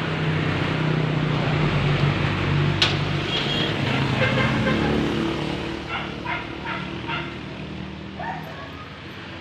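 A dog barking, a run of short barks between about three and seven seconds in, over a steady low hum. There is one sharp click just before the barking starts.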